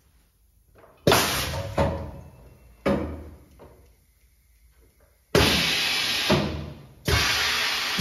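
Hydro-pneumatic aluminium corner crimper cycling: a series of sudden clunks as clamps and the crimping head drive home, each followed by a hiss of air that fades over about a second, with a longer, steadier hiss starting a little past halfway.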